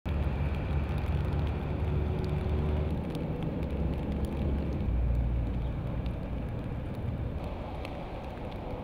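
Low, steady rumble of a motor vehicle running, with faint scattered clicks.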